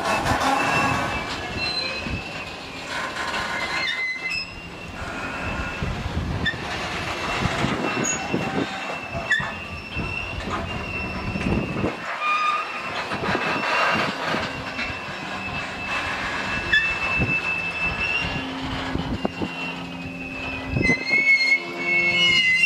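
Grain hopper wagons of a freight train rolling past at close range. The steel wheels squeal against the rails in a thin, high, steady whine that grows louder near the end, over a run of irregular clacks and knocks from the wheels and bogies.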